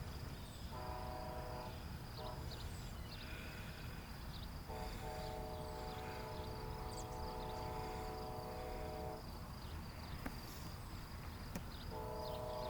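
Distant diesel-electric locomotive air horn of a Siemens-hauled Amtrak train, a chord of several notes sounded in separate blasts: about a second long near the start, a brief toot, a long blast of about four seconds from the middle on, and another starting near the end, as the train blows for crossings coming into town.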